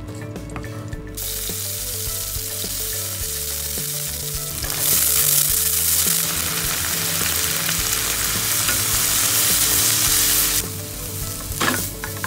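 Minced meat, garlic and diced red bell pepper sizzling in oil in a frying pan as they are stir-fried with a wooden spatula. The sizzle swells louder about five seconds in and falls back near the end.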